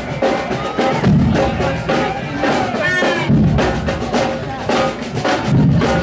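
Marching drum band playing a steady beat on snare and bass drums.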